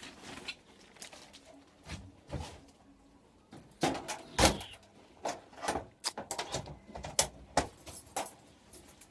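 A run of irregular knocks and clatters, sparse at first, then busy and loudest in the second half.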